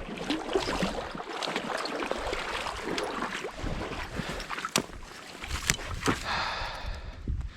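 Hooked trout splashing and thrashing in the water as it is reeled in and landed, with scattered sharp clicks and knocks from the handling.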